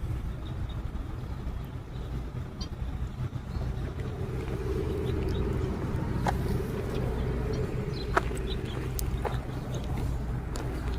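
Low, steady motor-vehicle engine rumble that swells through the middle, with a few short high chirps and clicks over it.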